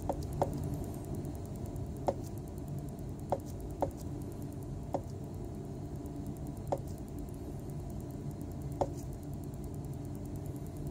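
Light, irregular taps and ticks, about eight over some ten seconds, from a plastic reagent bottle being tapped to shake agarose powder out onto weighing paper on an electronic balance, over a steady low hum.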